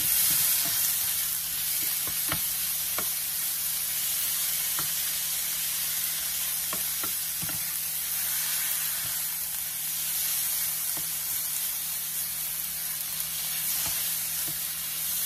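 Ground beef sizzling in oil in a hot nonstick frying pan as a plastic spatula stirs and breaks it up, with a steady hiss and scattered taps and scrapes of the spatula against the pan.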